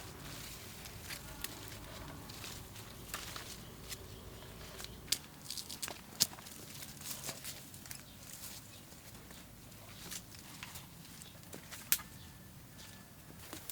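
Scattered light clicks and rustles, with a low steady hum that stops about five seconds in.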